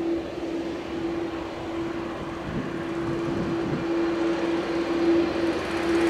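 Airbus A330-200's twin jet engines at idle as the airliner taxis: a steady whine over a broad rumble, growing slowly louder toward the end.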